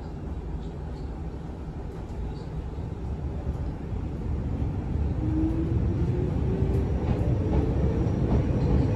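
Izuhakone Railway 7000 series electric train heard from inside the passenger car: running rumble growing louder as it picks up speed. From about five seconds in, the whine of its resistance-controlled traction motors rises slowly in pitch.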